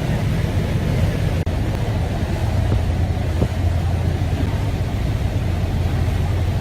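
Boat engine running steadily, a low drone with a rushing hiss over it, broken by a very brief dropout about a second and a half in.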